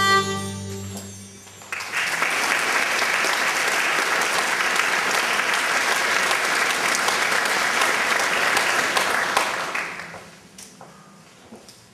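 The last note of the music fades out, then an audience applauds for about eight seconds, the clapping dying away near the end.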